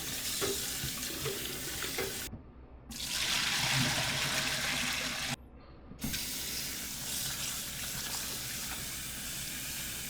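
Cold water from a kitchen tap running over freshly drained lasagna noodles to stop them cooking. The rush of water cuts out twice briefly and is loudest in the middle stretch.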